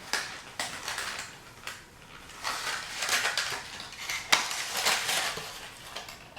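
Fishing tackle and its packaging being handled: irregular rustling and small clicks, with one sharp click a little past four seconds in.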